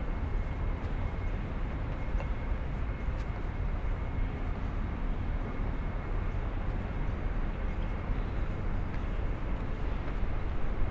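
Wind buffeting a small camera microphone: a steady low rumble that flutters rapidly in level.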